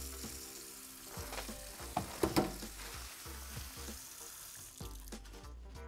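Tap water running from a faucet into a stainless-steel sink, a steady hiss that stops about five seconds in as the faucet is shut off. A couple of sharp clicks about two seconds in as a paper towel is pulled from the dispenser.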